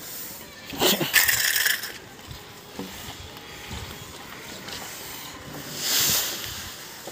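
Masons' hand tools rubbing and scraping over freshly laid cement roof plaster, with two louder hissing scrapes: one about a second in lasting about a second, another around six seconds.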